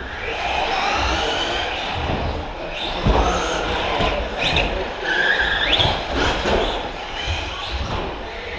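Electric RC short-course trucks racing on a carpet track, their motors whining up and down in pitch as they accelerate and brake, with tyre squeal. A hard thud about three seconds in, as from a truck landing or hitting the track edge.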